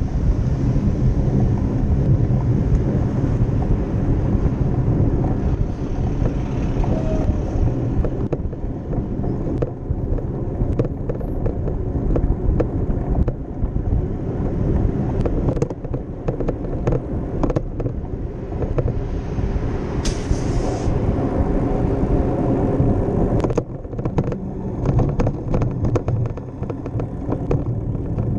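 Wind and road rumble on a camera riding on a moving bicycle, with frequent rattling clicks from the camera and bike over rough pavement and cars driving behind. A brief hiss about twenty seconds in.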